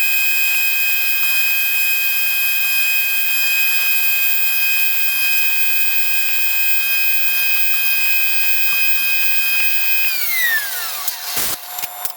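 Power tool running with a steady high whine, then switched off about ten seconds in, its pitch falling as it winds down, followed by a few knocks.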